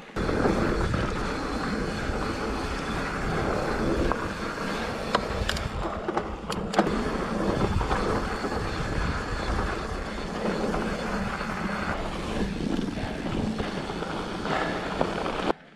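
Mountain bike rolling fast down a rocky dirt trail: a steady rumble of knobby tyres on dirt and gravel with wind on the microphone, and a few sharp rattles and knocks from the bike over rocks. It stops abruptly near the end.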